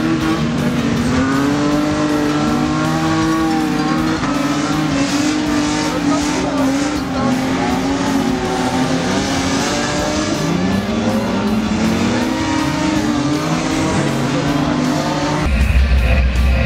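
Several stock-car engines revving and shifting as the cars race round, their pitches rising and falling over one another. About a second before the end it switches abruptly to loud rock music.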